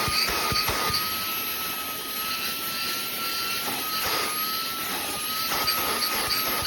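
SMOTURE cordless stick vacuum running: a steady high motor whine that wavers slightly in pitch over the rush of suction, with scattered soft knocks.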